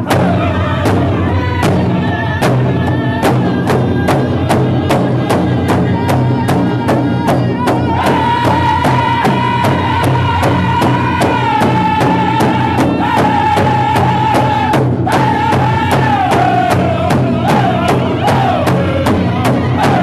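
A powwow drum group singing a contest song: several men strike one large shared drum in a steady, even beat while the voices sing high over it. The singers hold a long high note through the middle, and the melody falls in pitch near the end.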